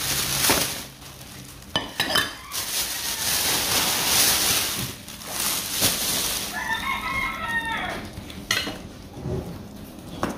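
A rooster crows once, a single arching call about two-thirds of the way in. Before it comes a few seconds of loud crackly rustling, likely the thin plastic bag being handled, with a few light knocks.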